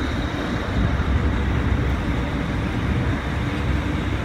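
A ferry's diesel engines running with a steady low rumble as it pulls in alongside the landing, with a faint steady high tone over the top.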